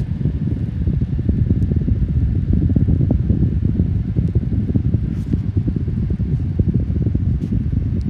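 12-inch five-blade box fan running on speed two, with a steady, uneven low rumble of air blowing close to the microphone.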